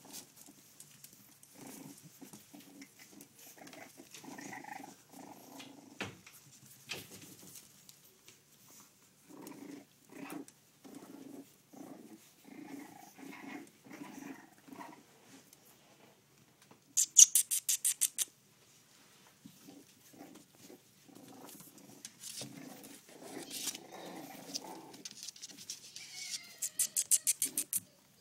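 Six-week-old French bulldog puppies making many short, low vocal sounds one after another. Twice, once midway and again near the end, a loud rapid run of high clicks lasting about a second cuts in.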